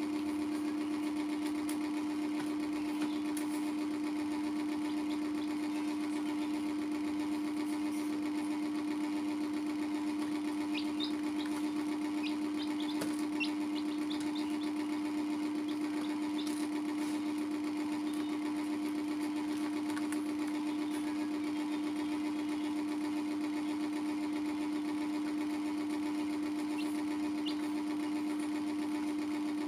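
Steady mechanical hum with one strong low tone, unchanging throughout, like a small electric motor running. A few faint, short, high chick cheeps sound over it, mostly about ten to fourteen seconds in.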